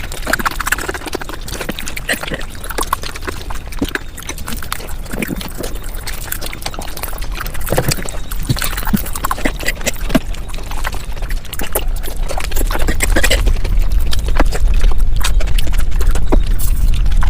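Mukbang eating sounds played at five times speed: a dense, rapid run of clicks and smacks from chewing and mouth sounds, with a low rumble growing louder in the second half.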